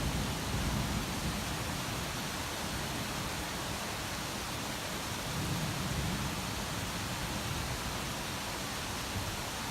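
Thunderstorm rain making a steady, even hiss. A low thunder rumble dies away in the first second, and a fainter low rumble swells briefly about halfway through.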